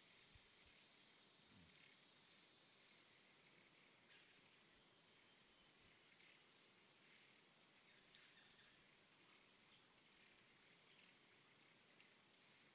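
Near silence, with a faint, steady, high-pitched insect drone.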